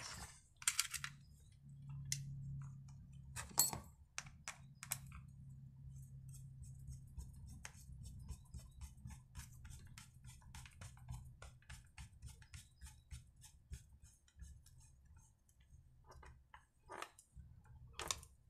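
Faint clicks and ticks of plastic and metal as a chainsaw's recoil starter cover is fitted and its screws are driven in with a T-handle hex key, with a few sharper knocks of the housing being handled.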